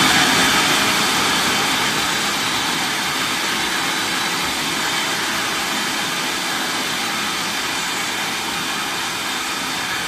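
Food processor with an S blade running continuously, blending frozen kiwi slices with coconut cream into a purée. A loud, steady whir that eases slightly in loudness as it goes.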